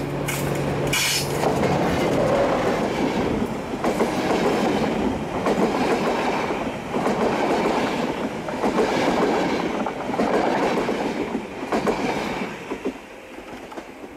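OSE Class 220 diesel-electric locomotive passing close with a steady engine hum, followed by its passenger coaches rolling by with a rhythmic clickety-clack of wheels on the rails. The sound fades out as the last coach goes by near the end.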